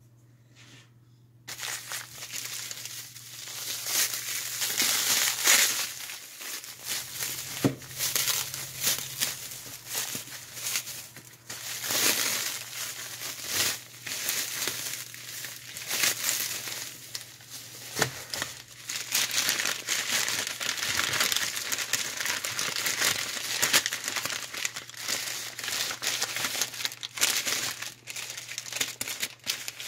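Plastic wrap and a paper bag crinkling and rustling in handling as hands unwrap blocks of white chalk, with many sharp crackles; it starts about a second and a half in.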